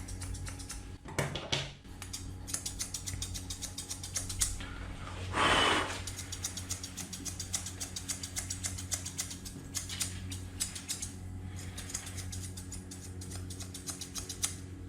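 Grooming scissors snipping through a Pomeranian's coat in quick runs of clicks, over a steady low hum. A louder, brief rustling burst comes about five and a half seconds in.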